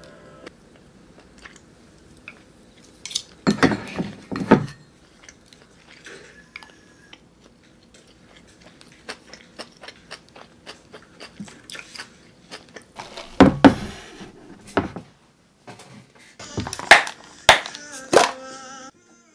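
Eating at a table: a spoon and chopsticks clicking against ceramic bowls and an enamel plate, with chewing between them. Near the end come a few sharper clicks and snaps as the latches of a plastic food container are unclipped.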